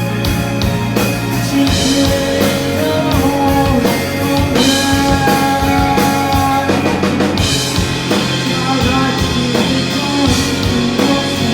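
A rock band playing live, with electric guitars and a drum kit, in an instrumental passage of the song without vocals.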